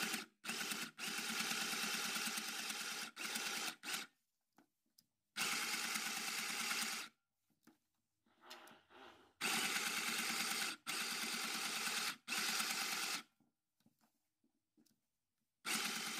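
Small portable mini sewing machine stitching through denim in several short runs of about one to three seconds, stopping and starting with brief pauses between runs.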